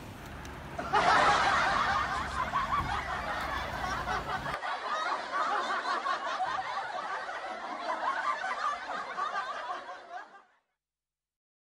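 Several people laughing, starting suddenly about a second in and fading out near the end.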